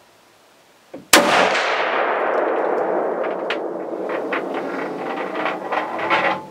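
A single rifle shot from a Thompson/Center .35 Whelen, about a second in. It is followed by several seconds of loud rushing noise with scattered clicks and rustles, which fades near the end.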